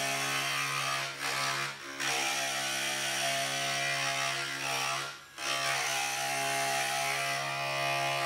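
Techniglass Grinder stained-glass grinder running with a steady motor hum while a strip of art glass is fed along the straight edge guide and ground against the spinning bit, a dense gritty hiss over the hum. The sound dips briefly about a second in, near two seconds and around five seconds.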